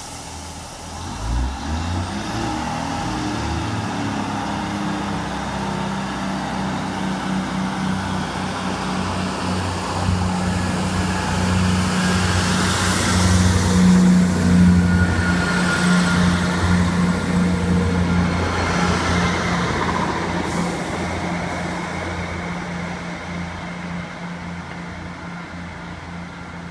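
Class 158 diesel multiple unit's engines revving up as it pulls away, rising in pitch over the first few seconds. They then run steadily as the train passes close by, loudest about halfway through, and fade as it moves off down the line.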